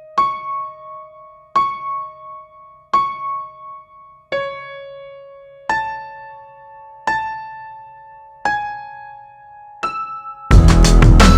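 Background music: slow single electric-piano notes, one about every second and a half, each ringing out and fading. Near the end, loud electronic music with a heavy beat cuts in suddenly.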